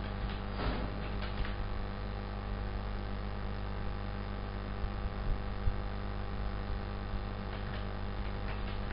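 Steady electrical mains hum with a buzz of evenly spaced overtones. A few light clicks of computer keys come about half a second to a second and a half in and again near the end.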